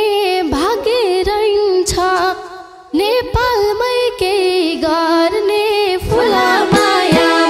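A young woman sings a Nepali dohori verse solo into a microphone, her voice bending through ornamented turns, with a short break for breath partway through. Near the end the band's accompaniment comes in with drum strokes under her voice.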